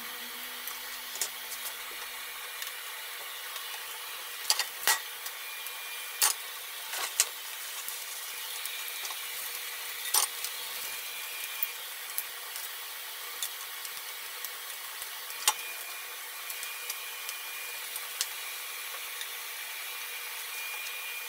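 Oil sizzling steadily in a frying pan as small pieces of food fry, with scattered sharp clicks and taps of a wooden spatula and chopsticks against the pan.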